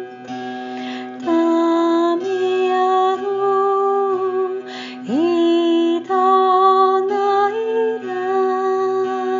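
A woman's wordless singing in long held notes that step between pitches, with a slow slide up about five seconds in, over a steady drone from a zither-type string instrument.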